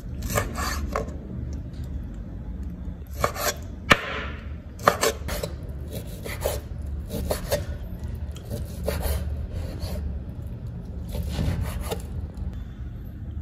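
A chef's knife slicing cooked pork on a wooden cutting board: short runs of strokes through the meat, each ending in a tap of the blade on the board, with pauses between runs. A steady low hum lies underneath.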